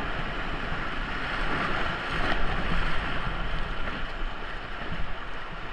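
Steady rush of river water through whitewater rapids.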